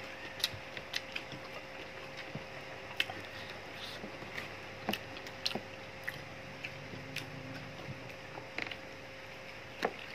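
Close-up eating sounds: chewing on a mouthful of rice and shrimp, with scattered short wet clicks and smacks. A faint steady hum runs underneath.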